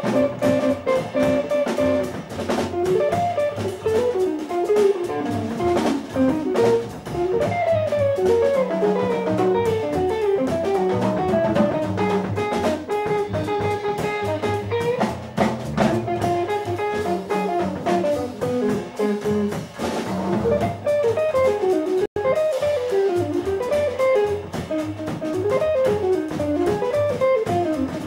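Live jazz trio playing: guitar running a busy single-note melodic line over upright bass and drum kit with cymbals. Two-thirds of the way through, the sound drops out for a split second.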